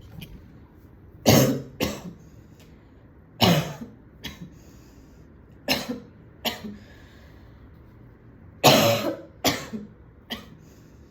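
A woman coughing in short bouts of two or three coughs, about ten coughs with pauses between the bouts, which she puts down to smoking a cigarette.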